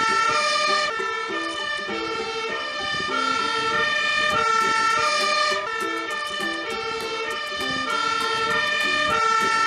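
Fire engine's two-tone siren sounding continuously, alternating between a high and a low note.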